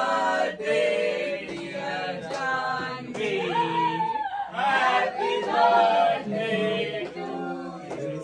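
Several voices singing together, with held notes and sliding pitch.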